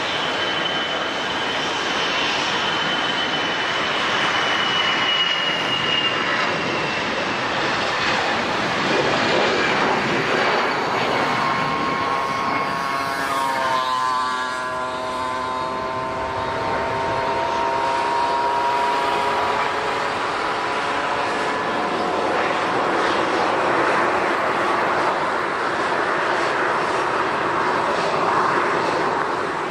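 An airliner's engines running loud and steady as the aircraft passes close by. The engine whine drops in pitch as it goes past, about halfway through.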